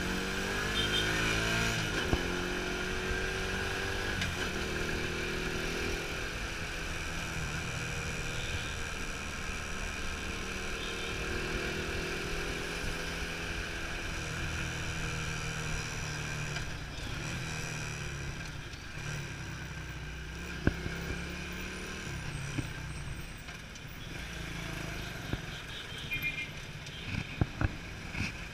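Motorcycle engine running while riding through traffic, its pitch rising and falling several times. A few sharp knocks come through in the second half, most of them near the end.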